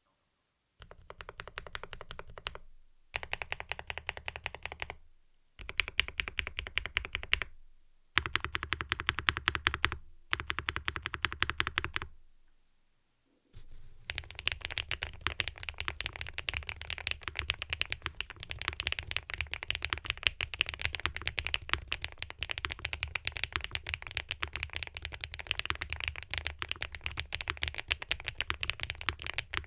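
Custom mechanical keyboard with round keycaps and HMX switches being typed on: rapid keystroke clacks in five short runs with brief pauses between them, then continuous fast typing from about halfway through.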